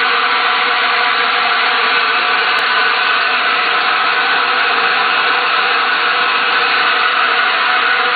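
A 5-gallon water bottle washing and filling machine running: a steady, loud machine noise with a hiss and several steady hum tones inside it.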